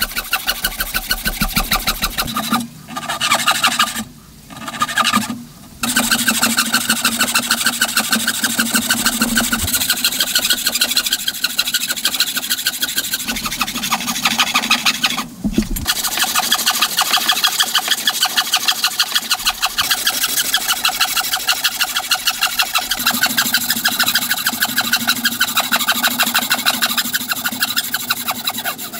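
Wooden frame saw cutting into a square timber post by hand, rasping back and forth in quick, even strokes of about four a second. The sawing breaks off briefly a few times in the first six seconds and once about halfway.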